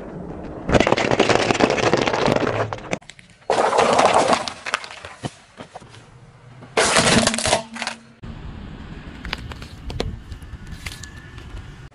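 A car's tyres crushing brittle objects, dry pasta shells, a plastic toy and wax crayons among them. Loud crunching and cracking comes in separate stretches, then quieter scattered cracks.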